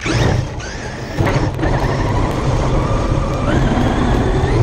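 Onboard sound of a Traxxas X-Maxx RC monster truck driving on grass: its electric motor whines upward in pitch as it accelerates away, again about a second in and once more about three and a half seconds in, over a steady rumble of tyres and drivetrain.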